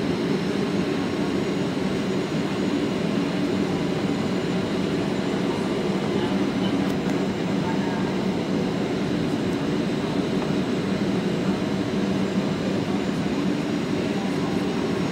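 Steady cabin noise inside a Boeing 737-800 on approach: a low, even drone of its CFM56 jet engines and air rushing past the fuselage.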